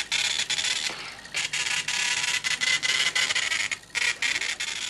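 Sagem TX20 electronic teleprinter running: a rapid, rasping mechanical chatter made of many short runs, with brief pauses about a second in and again near the end.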